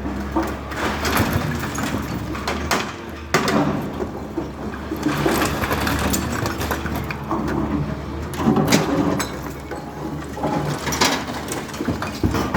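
Demolition of a building: rubble and debris crunching and crashing again and again over the steady low hum of a heavy machine's engine.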